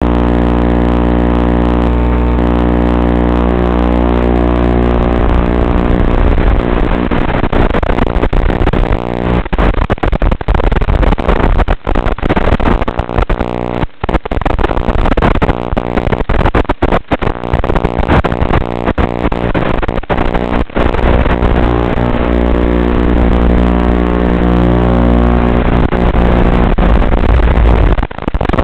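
Small FPV quadcopter's motors and propellers buzzing steadily in flight, a loud steady hum. The sound breaks up in many brief gaps through the middle stretch, around 9 to 21 seconds.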